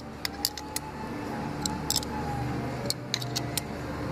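Scattered light metal-on-metal clicks as a long tool works the bolts drawing the steel rear head of a hydraulic cylinder into place. A steady low hum runs underneath.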